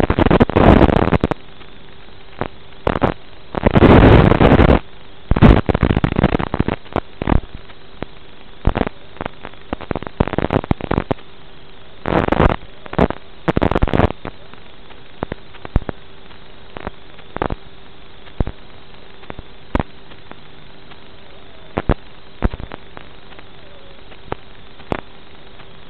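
Analog FPV video-receiver static: a steady hiss with a faint constant hum, broken by bursts of loud crackling noise and many sharp clicks as the 5.8 GHz video signal breaks up. The loudest bursts come right at the start, at about four to seven seconds, and around twelve to fourteen seconds.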